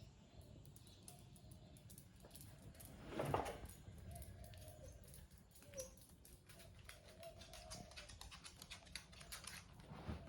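A senior dog scratching at dirt with its paws to bury a toy: faint, irregular scraping and patter that grows busier near the end, with one louder scuff about three seconds in.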